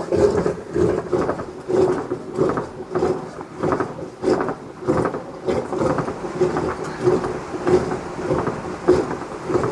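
Rhythmic knocking, about two strokes a second, each with a brief low ringing tone, stopping near the end.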